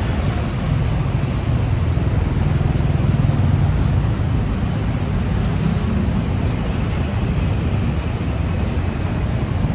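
City road traffic: a steady rumble of cars and other vehicles passing on a busy street.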